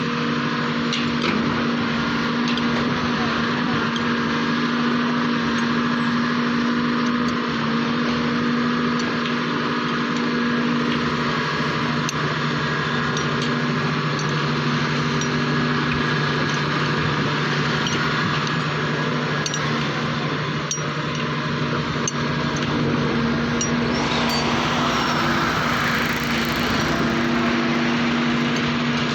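Kobelco SK520XD excavator's diesel engine running steadily while working, with scattered light clicks and a brief rushing swell near the end.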